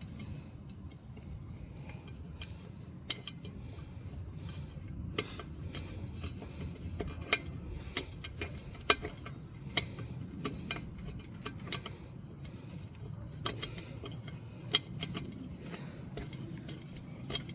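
Irregular light metallic clicks and clinks as tools and parts are handled against an e-bike wheel rim while the tube and tyre are worked on, over a low steady hum.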